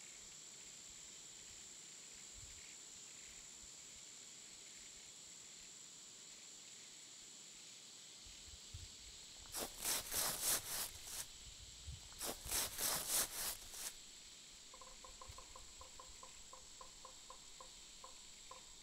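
Faint night-forest insect ambience: a steady high-pitched insect drone, with two louder bursts of rapid raspy pulses about halfway through, then soft regular chirps, about three or four a second, near the end.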